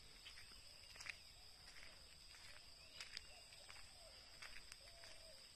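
Faint outdoor nature ambience: a steady high-pitched insect drone, with short animal calls repeating every second or so and a few light clicks.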